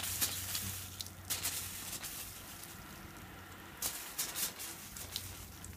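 Water spraying onto a corrugated plastic roof and a mud bottle wall: a hiss of spray that eases off about a second in, followed by scattered sharp taps and drips.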